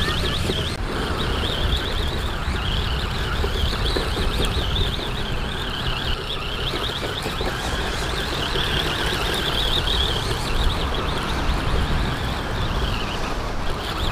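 Radio-controlled buggy's motor and drivetrain whining at a high pitch that rises and falls as the throttle is worked, with wind rumbling on the microphone.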